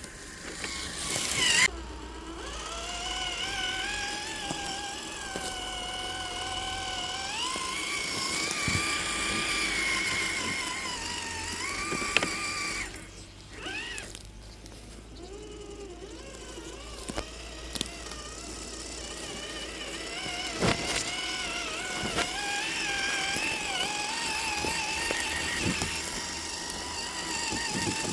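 Whine of an RC rock crawler's electric motor and geared drivetrain running on a 2S LiPo. The pitch rises and falls as the throttle is worked, climbing steeply just before two seconds in. The whine stops briefly about halfway through, and there are a few sharp knocks as the truck works over the terrain.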